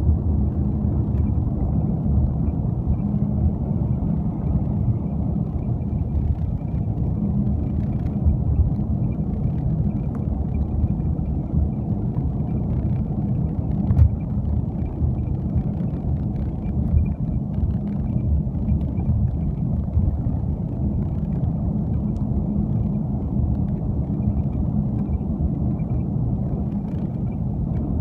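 Volvo XC70 on the move with steady road and suspension rumble, and a faint, short squeak recurring again and again: the creak of the rear trailing arm's rubber bushing. A couple of light knocks come through the suspension.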